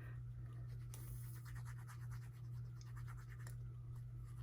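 Faint light scratching and small clicks of paper and craft materials being handled and worked at a table, over a steady low electrical hum.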